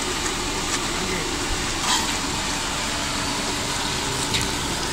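Dal vadas frying in a kadai of hot oil: a steady sizzle with a couple of short crackles.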